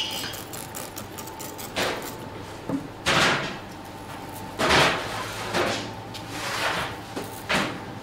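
Bakery work noises: a run of clicks, then four or five short scraping, clattering knocks of metal and wood, over a steady hum of machinery.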